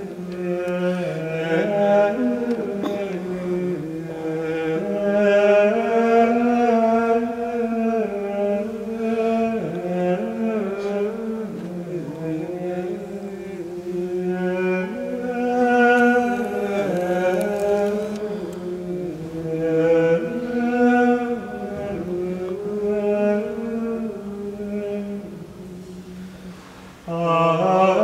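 Plainchant of the Mass Propers sung by male voice, a slow, flowing line of long held notes. It pauses briefly near the end, then resumes louder.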